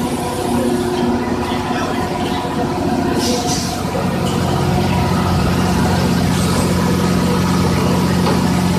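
Steady low drone of running machinery, an engine-like hum that grows louder about four seconds in.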